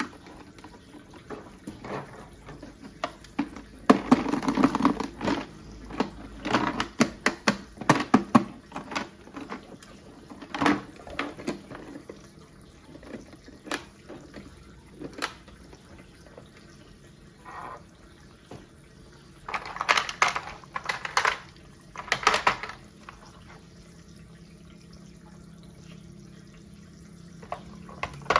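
Plastic toy parts being handled and fitted together: scattered clicks and knocks, with bursts of rattling about four to nine seconds in and again around twenty seconds in.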